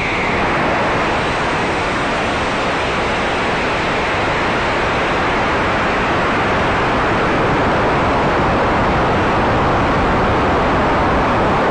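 Steady, loud rushing noise on a camera riding a high-power rocket: the AeroTech K456 Dark Matter motor firing and air rushing past the camera in flight.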